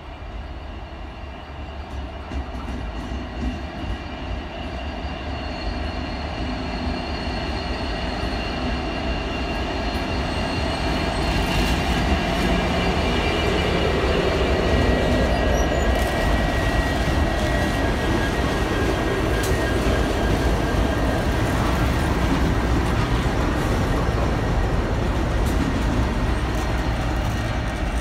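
Pacific National 92 class diesel-electric locomotives hauling a freight train, their engines drumming as they approach and pass, growing louder over the first dozen seconds and then holding steady. Thin high squealing tones from the wheels ride above the low rumble.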